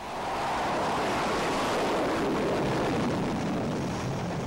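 Fighter jet engines at full thrust during an aircraft carrier catapult launch: a loud rushing noise that swells in at the start, its pitch sliding lower as it slowly fades.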